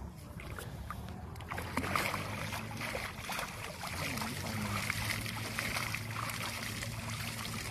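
Shallow pond water splashing and churning, starting about two seconds in, as a fishing line is hauled in by hand and water is flung with the hand. A steady low motor hum runs underneath.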